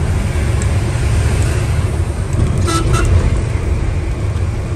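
Steady engine and road rumble heard from inside a moving vehicle on a highway. About two-thirds of the way through, a vehicle horn gives two short toots.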